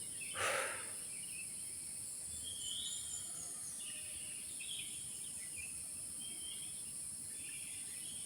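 Wild birds calling and chirping here and there over a steady high-pitched insect drone in a forest at dawn. A short rustle about half a second in.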